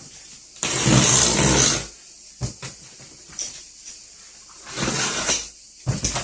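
A cardboard shipping box being opened and its contents handled: two loud stretches of scraping and rustling, about a second in and again near the five-second mark, with light knocks in between and near the end.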